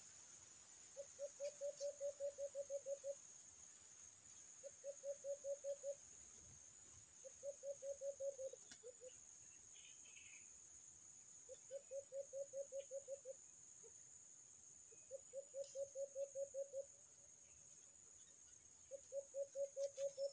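Caged decoy doves cooing: six runs of quick, low hooting notes, about eight to ten notes per run lasting one to two seconds, repeating every three to four seconds. It is the decoys' call used to lure wild birds to the traps.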